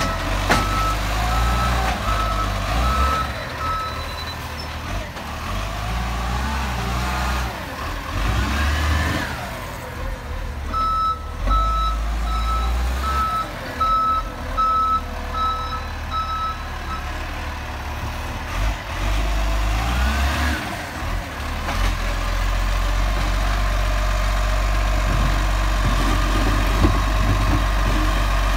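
Bucher side-loader garbage truck running, its diesel engine heavy and steady, with a reversing beeper sounding about once a second for the first few seconds and again for about six seconds a third of the way in. The engine runs steadier and louder in the last few seconds while the side arm lifts a bin.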